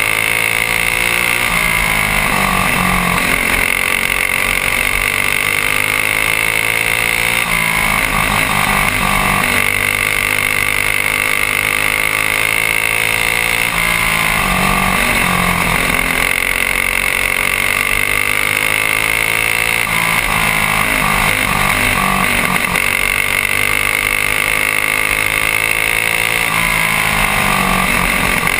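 Single-cylinder four-stroke Honda GX200-clone kart engine at racing speed, its pitch climbing for several seconds along each straight and dropping back in each turn, about every six to seven seconds.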